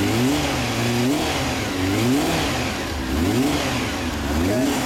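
2004 Honda CB750 (RC42) air-cooled inline-four running through an SP Tadao titanium full exhaust, revved in short throttle blips about once a second, the pitch rising and falling with each blip.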